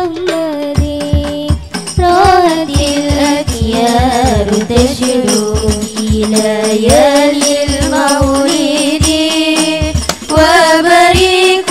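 Hadroh ensemble: girls' voices singing an Arabic sholawat melody in unison with sliding ornaments, over rebana frame drums beating a steady rhythm.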